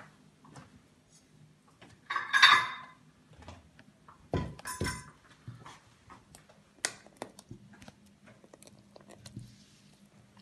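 A ladle knocking and clinking against a pot of thick sahlab pudding as it is stirred and lifted: two solid knocks about four and a half seconds in and scattered lighter clicks, over a low steady hum. A brief loud rasping noise comes about two seconds in.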